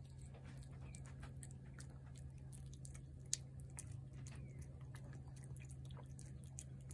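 Cat chewing wet food from a plate: faint, quick, wet mouth clicks throughout, with one sharp click about three seconds in. A steady low hum underneath.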